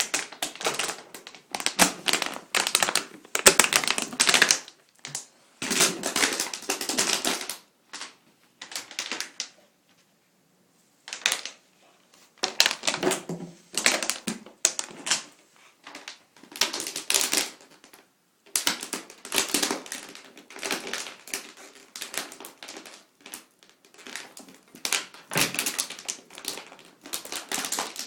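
Plastic bottle crackling and crunching as a pet chews and crushes it, in bursts of dense clicks with short pauses between them.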